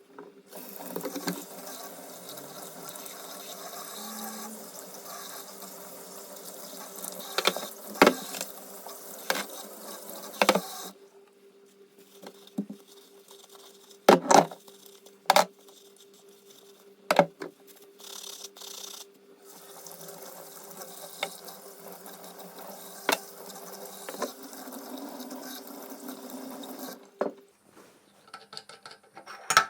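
Tap water running into a sink while the stainless steel meat grinder's parts are washed, with several sharp knocks of the metal parts against the sink. The flow stops twice briefly and ends near the end.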